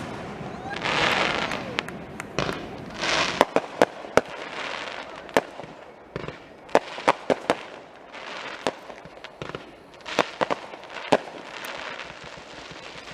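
Fireworks display: many sharp bangs of shells bursting, some in quick clusters, mixed with several second-long bursts of crackling hiss.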